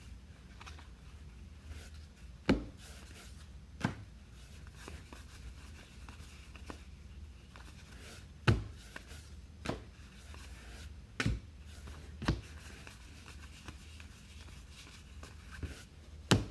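Trading cards and packs being handled on a tabletop, with rustling and several sharp taps as cards and items are set down, over a low steady hum.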